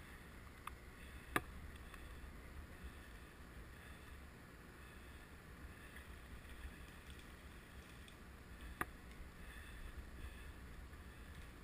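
Low, steady rumble of wind on the microphone, with two sharp clicks, one about a second and a half in and another some seven seconds later.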